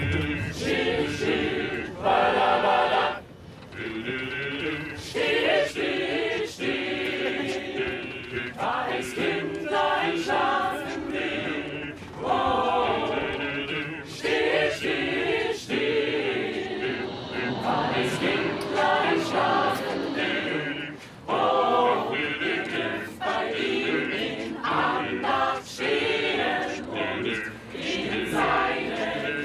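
Mixed choir of male and female voices singing a Christmas song a cappella inside a crowded tram carriage, in phrases with short breaths between them about 3 seconds and 21 seconds in.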